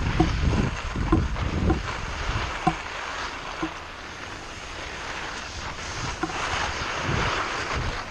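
Wind buffeting the microphone, strongest in the first two seconds, with the hiss of skis sliding over packed snow that swells near the end.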